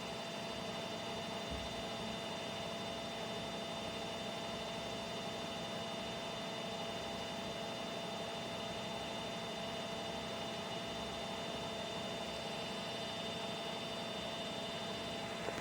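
Bosch washing machine running with a steady hum and a few fixed whining tones.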